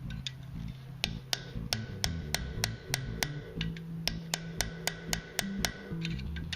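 Hammer blows on a steel punch driving a hole through hot iron on an anvil: sharp ringing strikes about three a second, starting about a second in, with a short pause about halfway. Background music runs underneath.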